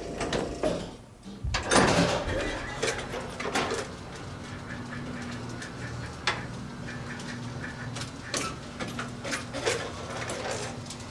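1954 Otis elevator getting under way upward: a clatter of knocks and rattles as it starts, then a steady low hum while the car travels, with sharp clicks now and then.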